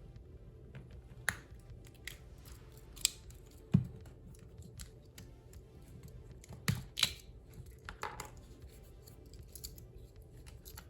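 Irregular sharp metallic clicks and snaps, about seven in all, from working on a Victorinox Swiss Army knife with small tools, over a steady low background.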